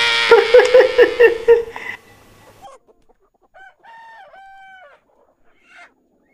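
A chicken crowing and clucking for about two seconds, followed by two fainter short calls a little later.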